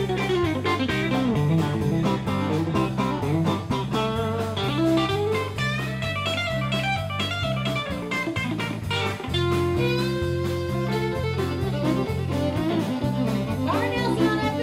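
Live country band playing, led by a Telecaster-style electric guitar picking fast runs of notes over a steady bass line and drums.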